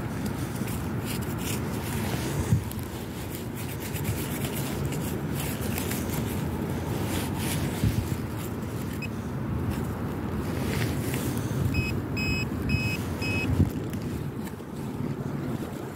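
Handheld metal-detecting pinpointer giving four short high beeps about three-quarters of the way through as it is worked through the dug soil, closing in on a buried target. Around it, gloved hands rub and scrape through earth and grass over a steady low rumble, with a few knocks.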